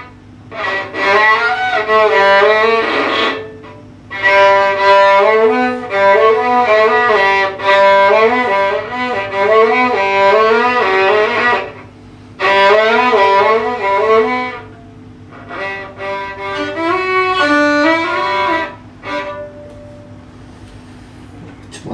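Solo violin, bowed, playing a melody in phrases broken by short pauses. The playing stops a couple of seconds before the end, leaving a faint steady hum.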